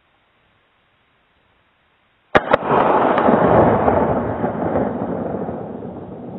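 A 12-gauge Remington 870 pump shotgun fires a single round of 00 buckshot about two seconds in: a sharp crack, a second crack a fraction of a second later, then a long reverberating tail that slowly fades.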